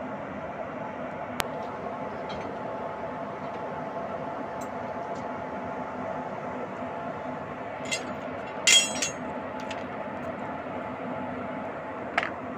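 Steady running hum of a train, broken by a few sharp metallic clinks, the loudest a brief ringing clank about nine seconds in.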